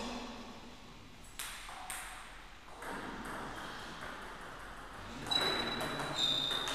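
Table tennis ball clicking off the table and bats: a few single taps early on, then from about five seconds in the quick, sharp, ringing hits of a rally.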